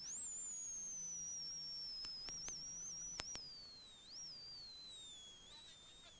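Peugeot 106 XSI rally car's drivetrain whine heard from inside the cabin: a thin, high whine that follows road speed, falling in pitch from about four seconds in as the car slows for a turn. A few sharp clicks come between about two and three and a half seconds in.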